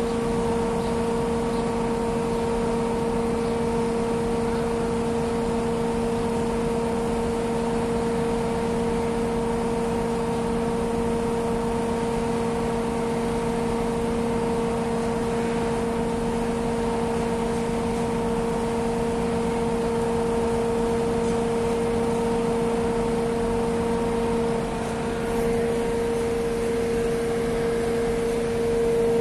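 Heavy crawler crane's diesel engine and hydraulics running steadily under load while hoisting, a constant droning hum with a steady pitched whine.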